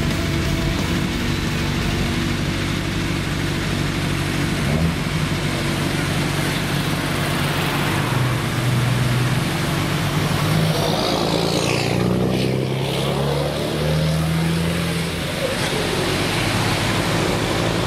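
DAF XF105 truck's open-piped straight-six diesel pulling away and accelerating past. Its deep exhaust note climbs and drops back in steps as it shifts through the gears.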